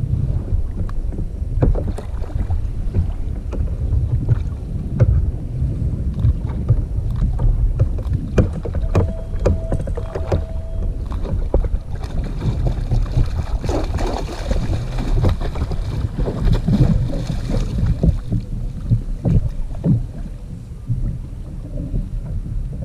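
Wind buffeting the microphone of a fishing kayak at sea, with water slapping the hull and scattered knocks and clicks of fishing gear. About halfway through, a stretch of splashing as a king mackerel is gaffed alongside the kayak.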